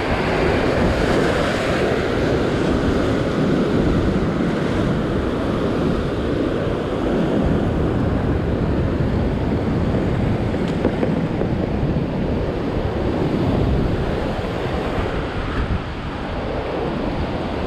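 Ocean surf breaking and washing over a rock platform, a steady rushing of whitewater, with wind buffeting the microphone.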